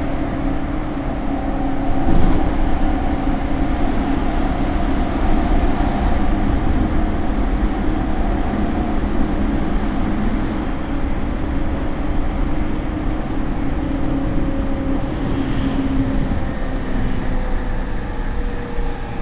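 Interior running sound of a JR E231-series electric motor car: wheels on rail with the steady hum of the traction motors and the Mitsubishi IGBT inverter, and a single knock about two seconds in. Near the end a motor tone slides downward as the train slows. The refurbished car's motors run loud with a slightly abnormal note.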